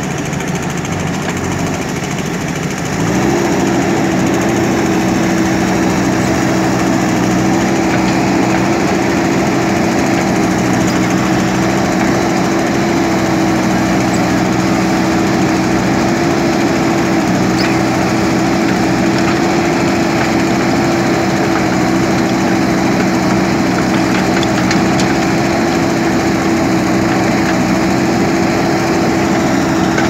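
JCB backhoe loader's diesel engine running under load as the rear backhoe digs. The engine note steps up in pitch and loudness about three seconds in, then holds steady.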